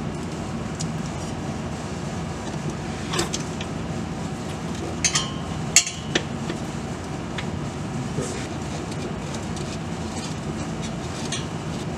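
Steady background hum with a few light clicks and taps of a hand tool on the bolt of a driveshaft center support carrier, the sharpest a little before six seconds in.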